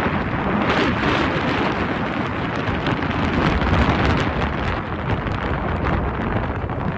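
Wind buffeting the microphone: a loud, steady rushing noise that swells and dips.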